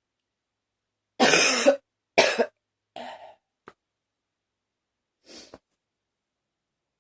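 A woman coughing: two hard coughs starting about a second in, a weaker cough right after, and a faint one near the end.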